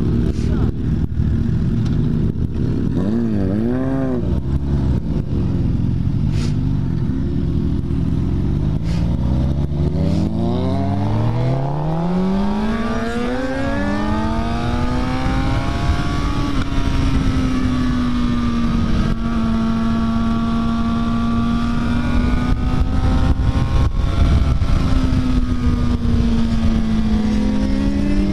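Suzuki GSX-R sportbike's inline-four engine, heard from the rider's seat, with wind noise throughout. It gives a quick rev about three seconds in, climbs steadily in pitch as the bike accelerates from about eight seconds, then holds a steady pitch while cruising.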